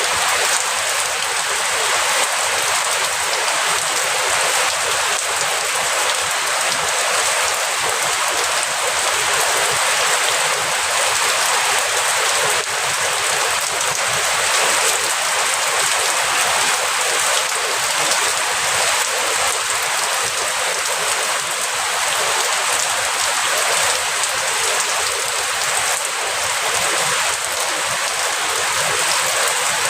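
Steady rain falling and pattering on surfaces, an even hiss with no let-up and no thunder.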